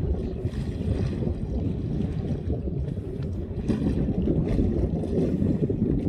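Low, steady rumble of a small boat on open water, mixed with wind buffeting the microphone.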